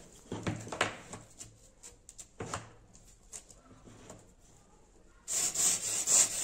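A few faint taps and knocks as a wooden sanding block is set against the root end of a foam glider wing, then, about five seconds in, sandpaper starts rasping back and forth across the wing root in quick even strokes, about three a second, cutting the dihedral angle.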